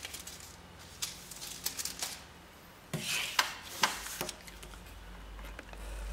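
Paper sticker sheets being handled, a stack of planner stickers rubbing and rustling, with a scatter of short, light clicks and taps as the stack is squared up and laid down.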